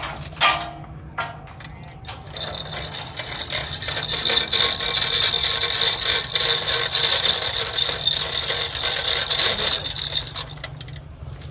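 Manual chain hoist worked by its hand chain: a few metal knocks at first, then from about two seconds in a fast, continuous rattle and clicking of steel chain running through the hoist, which stops near the end.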